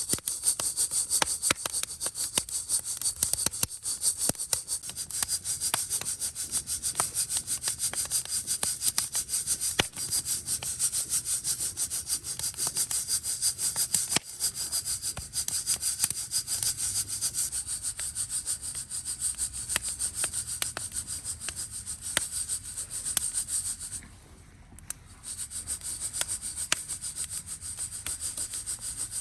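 Coffee beans rattling and rubbing inside a hand-held mesh roaster that is shaken continuously over a campfire. The rapid shaking stops briefly about three-quarters of the way through, then resumes.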